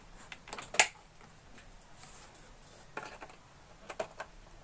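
A few sharp clicks and light knocks from handling the pump's power wire and connections on a workbench, the loudest about a second in, then more near three and four seconds.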